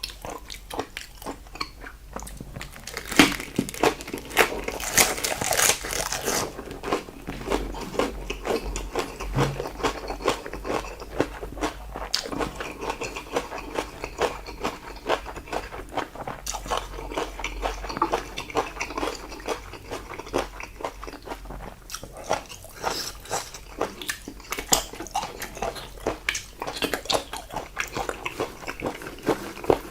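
Close-miked eating sounds of salted seafood (jeotgal): a dense run of wet clicks and crunches from chewing, loudest a few seconds in.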